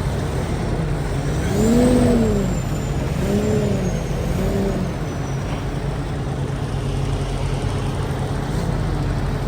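Semi truck diesel engine running steadily, with three short revs that rise and fall in pitch, the first and loudest about two seconds in.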